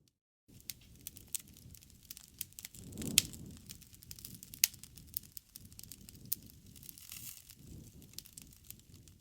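Wood fire crackling with frequent sharp pops, the loudest about three seconds in, over a low rumble of flames that swells twice. It begins after a half-second gap of silence.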